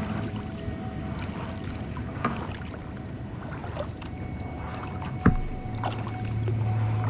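Kayak paddle strokes on calm seawater: the blade dipping and water dripping, with small splashes and one sharp knock about five seconds in. Soft background music returns near the end.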